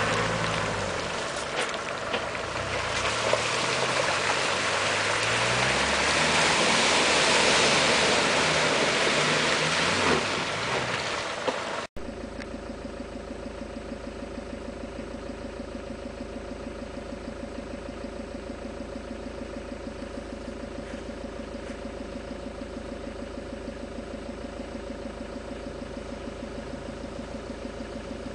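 Land Rover Discovery turbodiesel engine revving up and down under load, over a loud rushing noise of tyres in mud. About 12 seconds in, the sound cuts abruptly to a quieter, steady, even engine hum.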